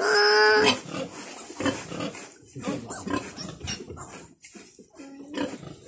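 Newborn piglet squealing while held in a person's hands: one long, loud squeal at the start, then shorter, quieter squeals and grunts.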